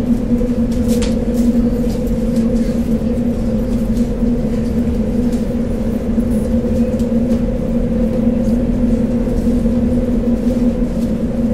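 A machine running with a steady, even hum at one constant pitch, with a few light clicks about a second in.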